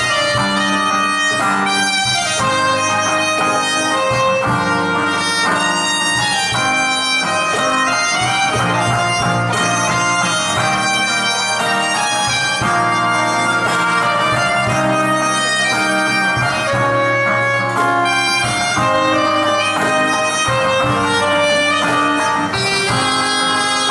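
Soprano saxophone playing a melody live over strummed acoustic guitar accompaniment.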